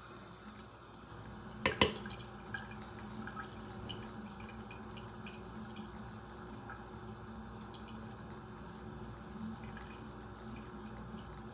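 Soft scattered ticks of a wet toothbrush being brushed along the hairline over a steady low room hum, with two sharp knocks close together about two seconds in.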